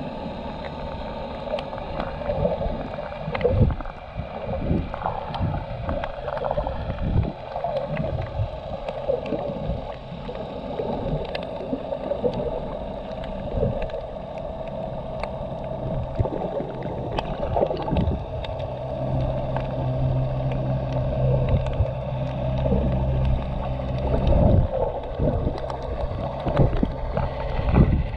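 Muffled underwater sound picked up by a submerged GoPro Hero 7's microphone: water sloshing and gurgling around the camera, with many scattered sharp clicks and a low steady hum that grows louder after the middle.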